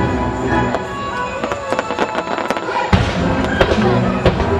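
Fireworks bursting with many sharp bangs and crackles, one of the loudest about three seconds in, over the show's accompanying music.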